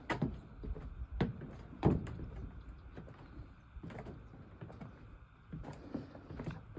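Footsteps on wooden boardwalk planks: a few irregular steps, the loudest about two seconds in.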